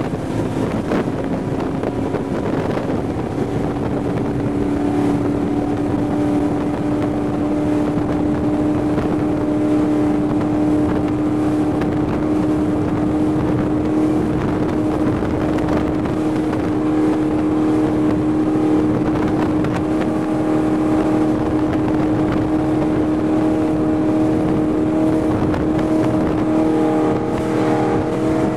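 Raider 26 powerboat's 460 cubic-inch Ford big-block V8 with a Volvo Penta DPX sterndrive running flat out. The engine note settles to one steady pitch a few seconds in, over the rush of wind and water against the hull.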